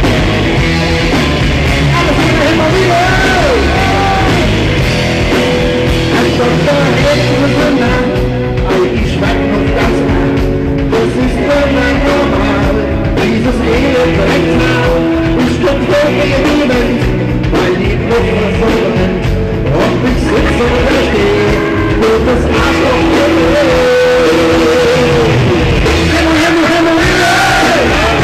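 Live rock band playing a song with a lead singer.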